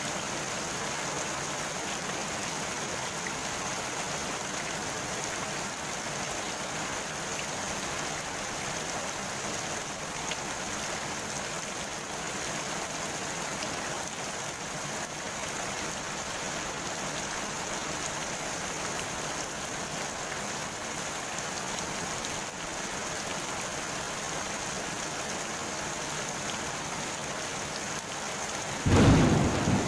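Steady rain falling on the surface of a pond, an even hiss. Near the end a sudden, loud clap of thunder breaks in and keeps sounding.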